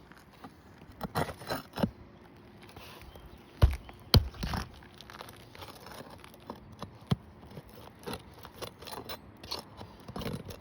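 Asphalt roof shingles being pried up and handled: irregular crinkling, scraping and clicks, with two sharp knocks a little over half a second apart about three and a half seconds in.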